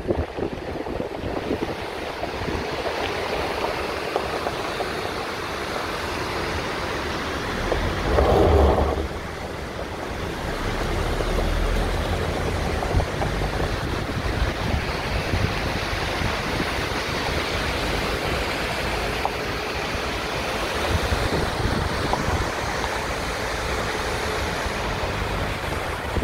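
Steady rush of water pouring from inlet pipes into concrete trout-farm raceways. Wind buffets the microphone now and then, with a louder swell about eight seconds in.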